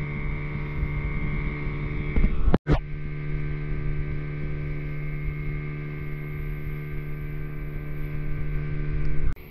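Boat engine running at a steady pitch, heard as a constant hum. It breaks off for a split second about two and a half seconds in and drops away abruptly near the end.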